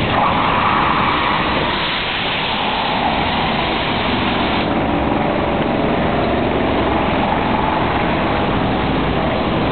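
Steady mechanical noise of an automated veneer peeling line running. The higher hiss drops away about five seconds in.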